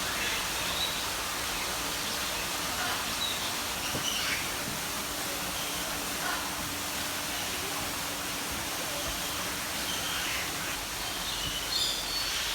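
Tropical birds giving short, scattered chirps and calls over a steady rushing hiss, with a cluster of calls near the end.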